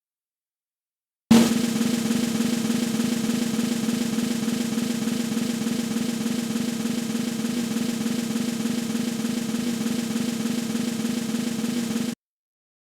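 Snare drum roll used as a suspense sound effect: after about a second of silence it opens with an accented hit, runs evenly at a steady level for about eleven seconds, then cuts off suddenly.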